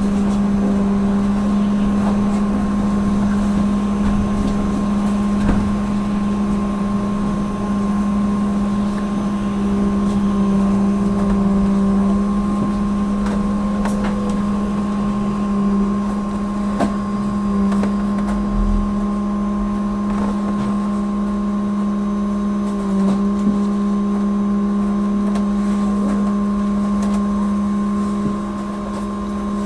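Inside a trolleybus on the move: a steady electrical hum at one unchanging pitch from its electrical equipment, over road and tyre rumble, with a few light knocks.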